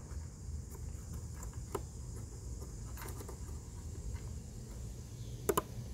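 Faint plastic clicks from a Dodge Durango tail lamp's bulb socket and its locking tabs being worked loose by hand, with a sharper double click near the end.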